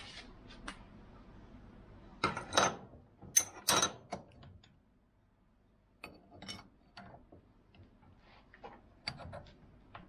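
Metal clanks and scrapes of a steel crate hammer being worked in a cast-iron bench vise with a wrench to straighten its bent bar. The loudest knocks, with a brief metallic ring, come about two to four seconds in, followed by lighter clicks and knocks as the vise is reset.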